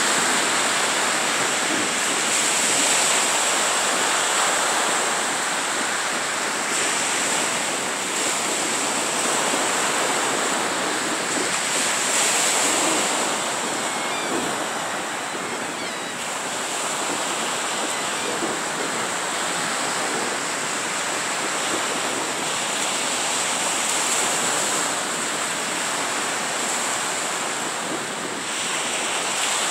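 Small surf breaking and washing up a sandy beach: a continuous rushing wash that swells and eases every few seconds as each wave comes in.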